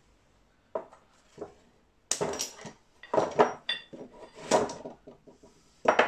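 Metal clanking as a steel G-clamp is worked loose from a small metal casting box and set down on a wooden bench. Two sharp knocks come in the first second and a half, then a quick run of clanks, some of them ringing briefly.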